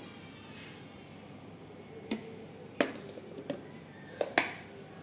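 Several light, sharp clicks and knocks of plastic kitchen containers being handled and set down on the counter while mixing pancake batter, starting about two seconds in, with two close together near the end.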